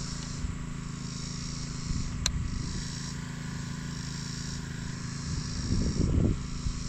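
Insects buzzing high in swelling waves, each lasting about a second, over a steady low hum, with a single sharp click about two seconds in and a brief low rumble near the end.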